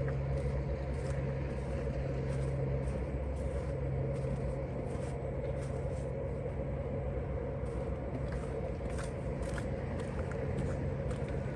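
Steady low hum and rumble of motor vehicles. Faint short clicks come at about two a second in the last few seconds.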